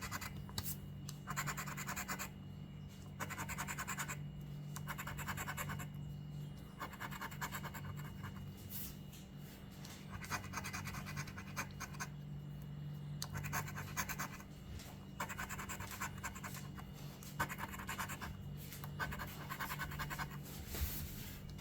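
Scratch-off lottery ticket being scratched: the coating is rubbed off in repeated strokes of about a second each, with short pauses between, over a steady low hum.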